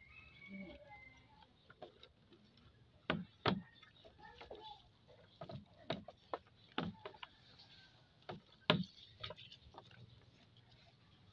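Irregular sharp clicks and knocks as raw pig legs are handled and turned over a plate, about a dozen taps at uneven intervals.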